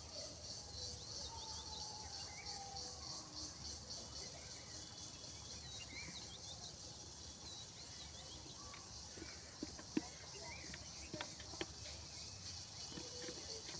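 Outdoor ambience dominated by a steady insect chorus, a fast high pulsing trill, with scattered short bird chirps and calls. A few sharp clicks come in the last few seconds.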